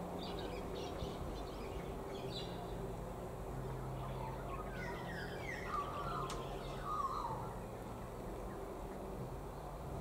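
Birds chirping and calling in short, quickly falling notes between about four and seven seconds in, over a steady background of noise with a low hum.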